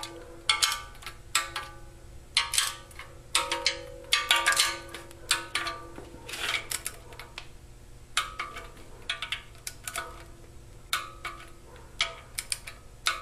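Torque wrench and socket working the windage tray and oil pickup bolts: irregular bursts of sharp ratchet clicks and metal clinks with a short ring, about one burst a second.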